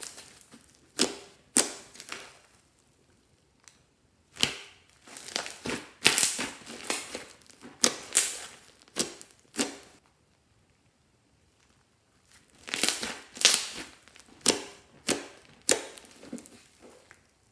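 Hands squeezing and stretching homemade slime, making bursts of sticky crackling and squelching pops. The bursts come in clusters, with a pause of a couple of seconds in the middle.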